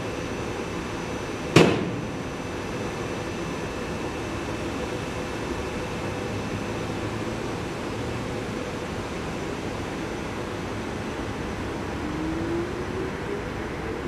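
SEPTA Silverliner IV electric commuter train standing at the platform with a steady hum from its onboard equipment. A single sharp bang comes about a second and a half in. Near the end a short rising whine is heard as the train starts to pull away.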